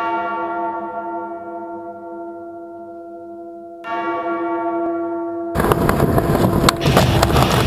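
A large bell struck twice, about four seconds apart, each stroke ringing out and slowly fading. About five and a half seconds in, loud music cuts in over it.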